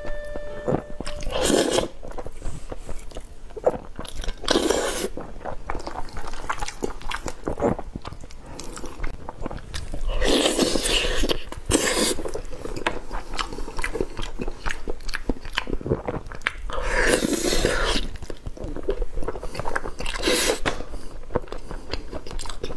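Close-miked eating sounds: noodles in thick black bean sauce being slurped up and a sauce-glazed piece of grilled fish being bitten into, with wet chewing in between. Louder slurps and bites come every few seconds.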